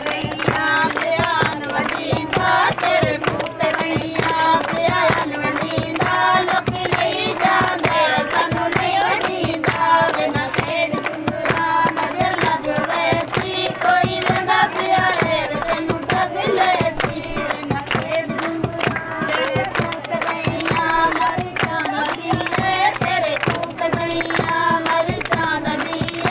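A group of voices singing a traditional Punjabi tappay folk song in unison, with steady rhythmic hand clapping.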